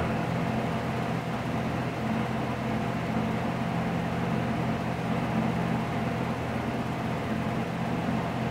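A steady low hum with a faint, thin steady tone above it, unchanging throughout.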